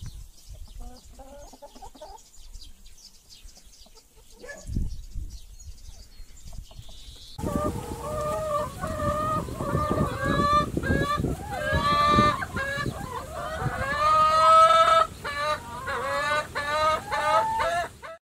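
Hens clucking and cackling, soft at first, then loud from about seven seconds in, with many overlapping calls.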